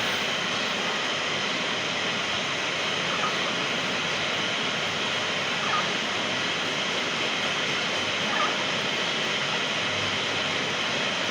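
A steady rushing noise, with a few faint short sounds about every two and a half seconds.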